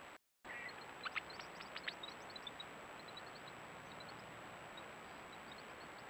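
Small bird giving sharp, high chip notes in a quick flurry about a second in, then scattered short, high tinkling notes. These are heard over a steady faint hiss, after a brief dropout to silence near the start.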